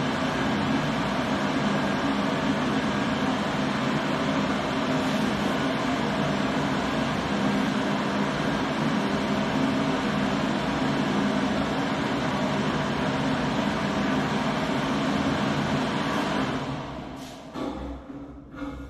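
Electric hand dryer blowing steadily with a constant motor hum, spinning down about two seconds before the end, followed by a few light knocks.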